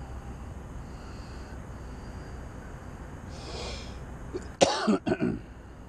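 A man coughing twice, two short harsh bursts about four and a half seconds in, over steady low background noise.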